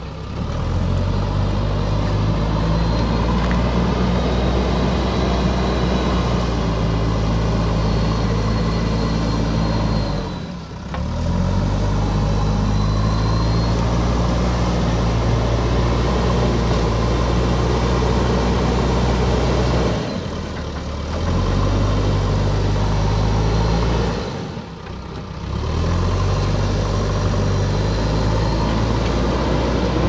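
JCB 3DX backhoe loader's four-cylinder diesel engine running hard as the front bucket pushes soil. Three times it briefly eases off and then revs back up.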